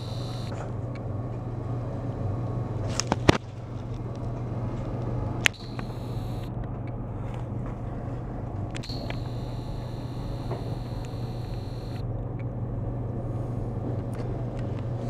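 A steady low mechanical hum over outdoor background noise, with two sharp knocks about three and five and a half seconds in.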